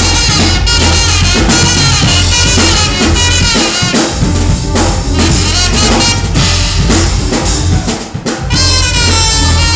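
Live band playing loud, upbeat music, with a drum kit keeping a driving beat under a horn melody.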